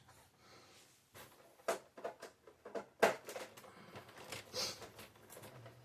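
Faint scattered clicks and light knocks of plastic and metal printer parts being handled during disassembly, the sharpest about three seconds in.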